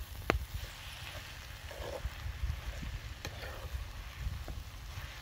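Spoon stirring fava beans as they cook in a clay tagine over a wood fire: soft stirring and sizzling with a few sharp clicks, over a steady low rumble.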